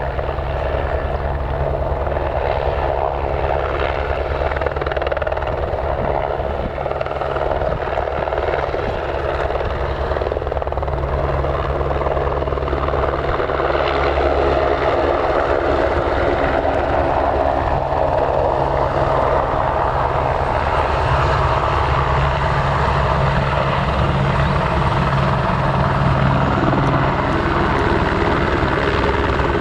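Helicopter running steadily, with a fast low rotor chop under a steady engine tone that grows a little stronger about two-thirds of the way through.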